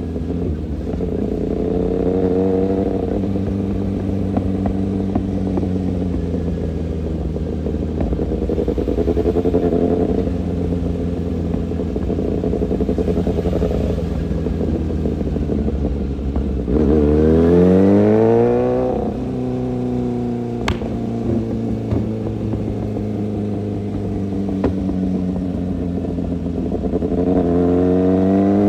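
Kawasaki ZX-6R inline-four sport-bike engine running, its pitch rising and falling with the throttle, with one hard rev-up and fall-back about two-thirds of the way through and another climb near the end.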